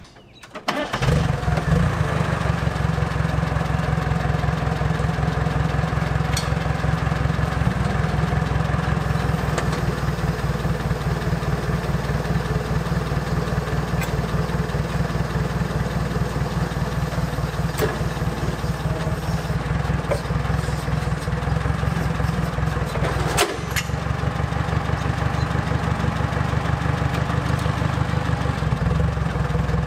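An engine starts about a second in and runs steadily at idle, with a fast even pulse; its sound briefly dips about three-quarters of the way through.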